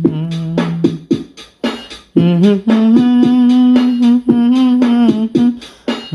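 Background music: a wordless vocal melody of long held notes over sharp percussive hits, with a brief lull about a second in.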